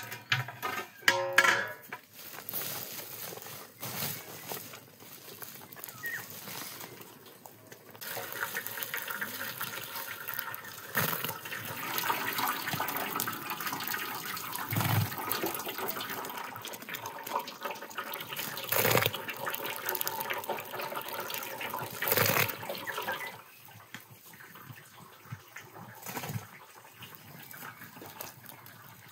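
Water running and splashing for about fifteen seconds, starting about eight seconds in and stopping near the end, with a few knocks in it; a few sharp clatters come before it.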